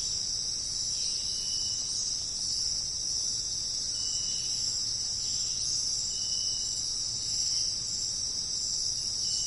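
Steady, high-pitched chorus of insects, unbroken throughout, with a short thin note coming back every two to three seconds, about four times.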